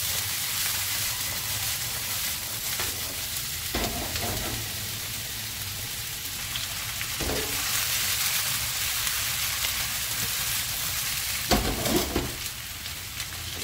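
Potato wedges, sausage slices, onion and celery sizzling steadily in oil in a frying pan over a gas flame. The pan is tossed to flip the food, with a short clatter about three times.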